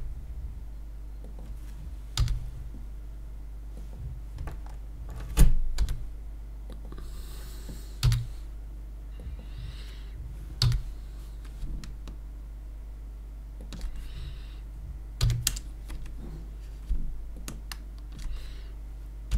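Computer keyboard and mouse being used: about seven separate clicks and key presses, a couple of seconds apart, with a few soft rustling sounds between them. A steady low electrical hum runs underneath.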